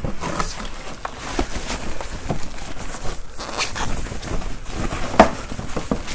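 Plastic wrapping bag rustling and crinkling as a new computer monitor is pulled out of its cardboard box and foam packing, with a sharp knock about five seconds in.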